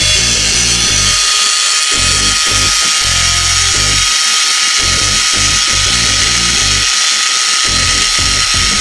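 Milwaukee M18 Fuel cordless pipe threader running steadily in reverse at speed 2, backing its die head off a freshly cut thread on 1¼-inch pipe, with a steady motor whine. Background music plays under it throughout.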